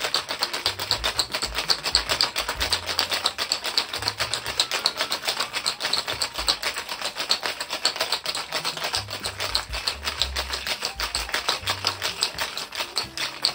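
Ice rattling inside a stainless steel three-piece (cobbler) cocktail shaker shaken hard and fast, a quick even rhythm of several strokes a second as a margarita is shaken.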